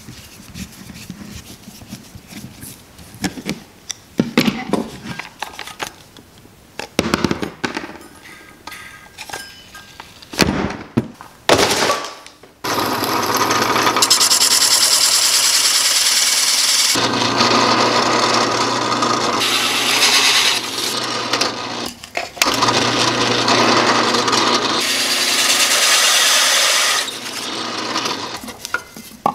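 Light clicks and scraping as screws are taken out of a random-orbit sander's pad with a screwdriver. About 12 seconds in, a drill press starts and its hole saw cuts steadily through plywood, with a low motor hum under the cutting noise and two short dips as the feed eases off.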